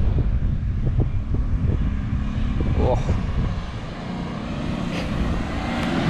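Engine of an off-road vehicle climbing the sand dune, growing louder toward the end, over low wind rumble on the microphone.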